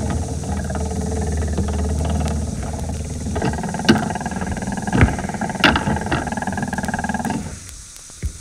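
Print-studio machinery picked up by contact microphones, played back from a cast resin record: a steady low mechanical hum with a few sharp knocks about halfway through, and the sound dropping away near the end.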